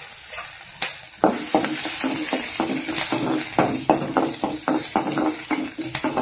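Chopped small onions frying in hot oil in a kadai with a tempering of mustard seeds and curry leaves, sizzling steadily. From about a second in, a spoon stirs them, scraping the pan in quick repeated strokes.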